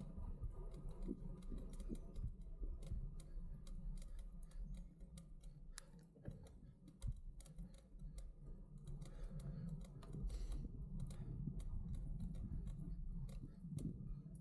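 Road bike descending, recorded on an action camera: a low rumble of tyres and wind with irregular clicks and rattles throughout.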